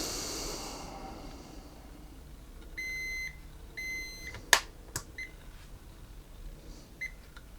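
Two short, steady electronic beeps about a second apart, followed by a few sharp clicks, the louder two about half a second apart, as from buttons or switches being pressed.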